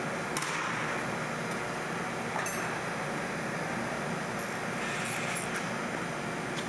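Steady background hiss with a few light metallic clinks of hand tools, three or so spread through, one of them ringing briefly.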